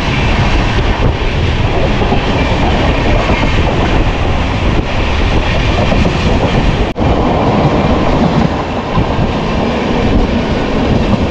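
Passenger train in motion: a steady, loud running noise of the coaches' wheels on the track, with a momentary drop about seven seconds in.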